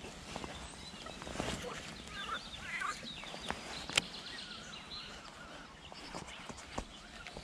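Birds chirping and calling over a steady outdoor hiss, with two sharp clicks, one at the start and a louder one about four seconds in.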